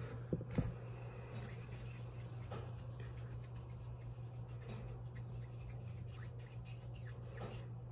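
Faint rubbing of hands rolling a small ball of polymer clay between the palms, over a steady low hum. Two light knocks about half a second in.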